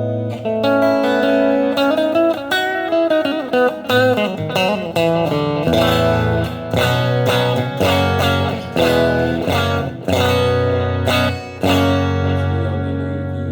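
Electric guitar played through a Hotone Ampero II multi-effects unit's built-in amp model and cabinet IR: rhythmic chords with short melodic phrases, including bent, wavering notes about four seconds in.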